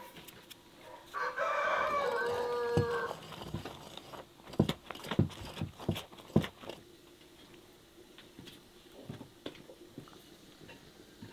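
A rooster crows once, a call of about two seconds ending on a falling note, the loudest sound here. Soon after come several sharp knocks of the spoon against the mixing bowl as the dough is stirred.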